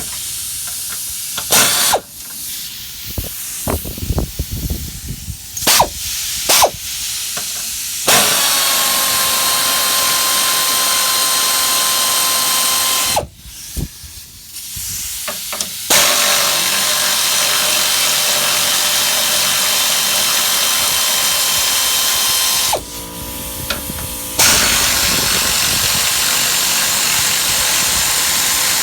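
A power drill running in three long, steady bursts, spinning out the 10 mm bolts of the engine undercover. Knocks and clicks of tools and parts are heard in the first few seconds.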